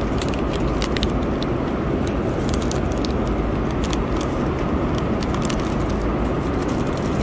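Steady airliner cabin noise in flight, with scattered light crinkles and clicks as the foil lid of a meal tray is peeled back and handled.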